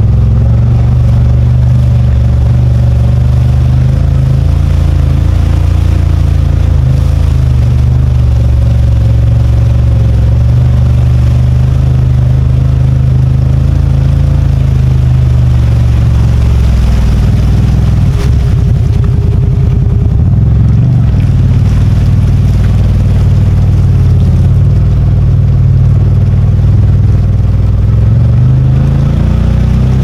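CFMOTO ZFORCE 950 HO Sport side-by-side's engine running steadily at low speed, with a brief shift in its note about two-thirds of the way through before it settles again.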